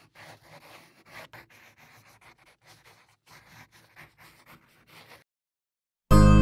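Pen nib scratching and rubbing on paper in quick, irregular sketching strokes, faint. Near the end, after a brief pause, plucked acoustic guitar music starts loudly.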